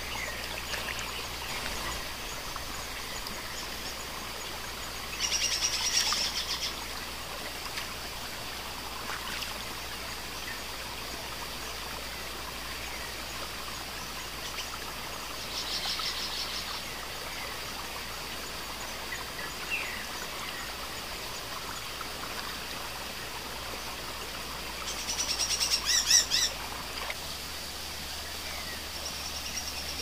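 River water running steadily, with birds calling over it: three louder bursts of rapid, trilled calls about five, sixteen and twenty-five seconds in, and a few faint single chirps between. A steady high-pitched whine runs underneath.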